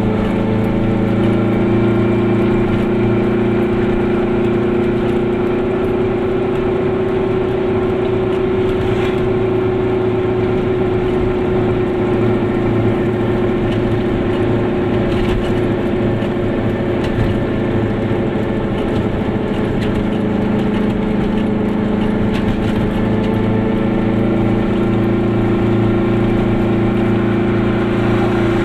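Goggomobil's air-cooled two-stroke twin engine running steadily at cruising speed, heard from inside the small car's cabin. The engine note sags slightly about halfway through and picks up again.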